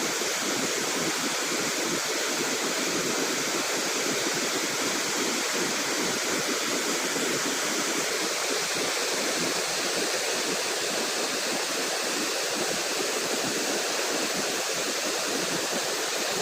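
Waterfall: water pouring and splashing down the rocks in a steady rush.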